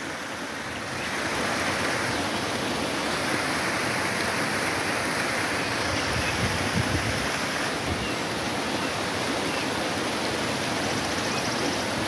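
Small mountain stream cascading over rocks: a steady rush of water.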